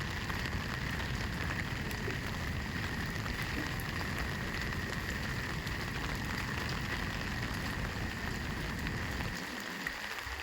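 Steady rushing of a waterfall, with a low rumble underneath that drops away near the end.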